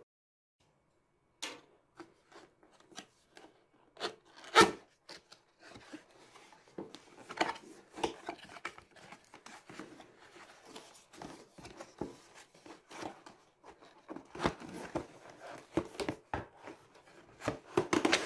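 Cardboard headphone box being opened by hand: irregular rustling, rubbing and tapping of card flaps and packaging. It starts about one and a half seconds in, with a sharp knock about four and a half seconds in.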